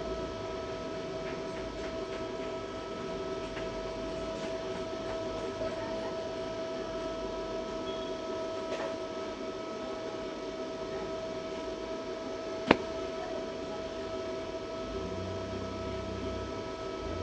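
Steady electrical hum made of several constant tones over a faint hiss, broken once by a single sharp click about two-thirds of the way through.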